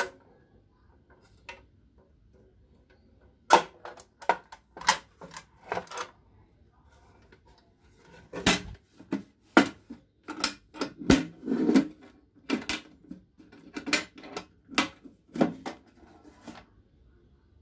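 Sheet-metal toolbox being handled: irregular sharp clicks and knocks of the metal lid, body and latch, starting a few seconds in and coming thickest in the middle.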